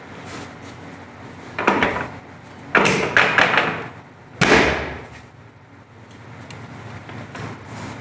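Chiropractic drop table sections snapping down under the practitioner's thrusts: three loud clacks over about three seconds, the middle one a quick cluster of knocks and the last ringing briefly.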